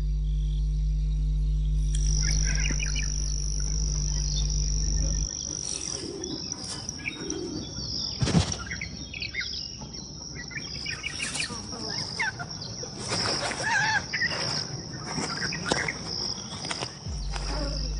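Grassland ambience: a steady high insect trill with scattered bird chirps and calls, and intermittent clicks and rustles, the sharpest about eight seconds in. A low steady drone underlies it, drops out about five seconds in and returns near the end.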